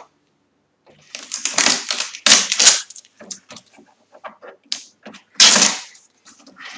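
Blue shipping tape being peeled off the plastic casing of a new inkjet printer, in several crackly ripping pulls. The loudest come about two and a half seconds in and about five and a half seconds in.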